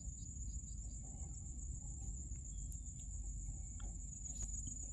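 Quiet background noise: a steady high-pitched whine over a low rumble, with a few faint clicks.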